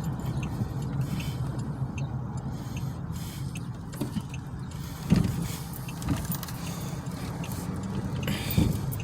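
Car running, heard from inside the cabin: a steady low engine and road hum with small clicks and rattles, and a sharp thump about five seconds in and again near the end.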